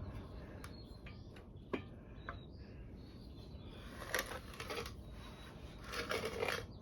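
Handling noises from an antique CS Bell No. 2 hand grain mill as its hand wheel is worked at to pull it off: a few light clicks and taps, then short rattling, scraping bursts of metal parts about four seconds in and again near the end.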